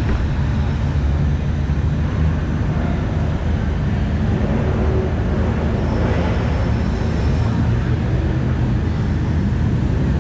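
Car engine running steadily: a continuous low drone with no change in pitch.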